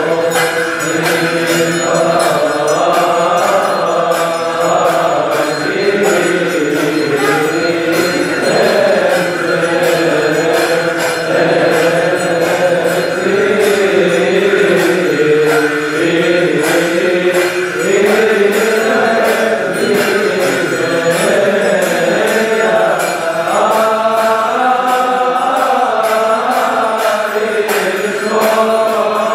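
Voices chanting a Coptic Orthodox hymn in unison, carried on a steady beat of hand cymbals about twice a second.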